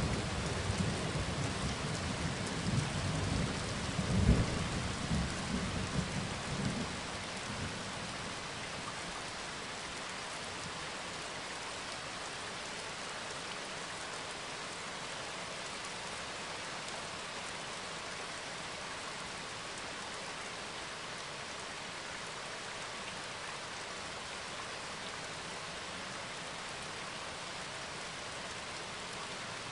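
Steady rain with low rumbles of thunder in the first seven seconds or so, which die away and leave only the even hiss of the rain.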